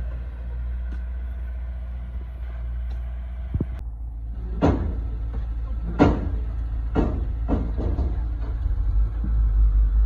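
A vehicle engine running steadily with a low rumble. In the second half come a handful of sharp knocks and clunks, the loudest about five and six seconds in.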